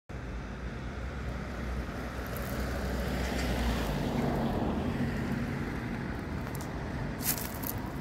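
Steady outdoor background rumble of road traffic, with a brief crackling rustle about seven seconds in.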